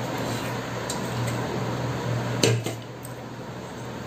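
Stainless steel dishes clanking once, sharply with a short ring, about halfway through, as a steel bowl is moved against the plate. A steady low hum and hiss runs underneath.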